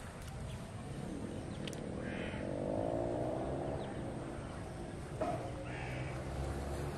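Outdoor animal calls: short harsh calls about two seconds in and again about six seconds in, with a longer, lower drawn-out call between them.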